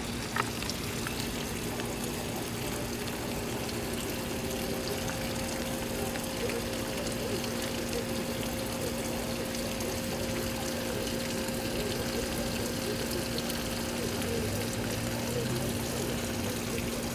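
Steady rushing noise like running water, with a constant low hum underneath and a second, higher hum joining about four seconds in.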